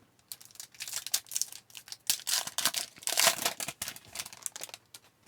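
A foil trading-card pack being torn open and its wrapper crinkled, with a run of irregular crackling and tearing rustles.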